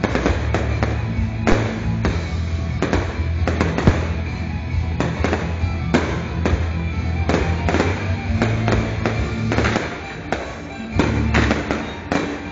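Fireworks display set to music: a rapid string of sharp bangs and crackles, several a second, over music with deep, steady low notes. The bangs thin out briefly a little before the end.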